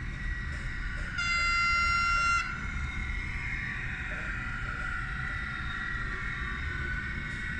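An N scale model locomotive's digital sound decoder plays a horn blast of about a second, starting about a second in. Under it is a steady high-pitched running hum from the small speaker or motor.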